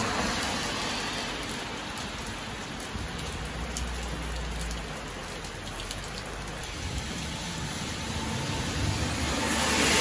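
Steady heavy rain falling on a wet road and pavement, with a vehicle's tyres swishing past on the wet road near the end.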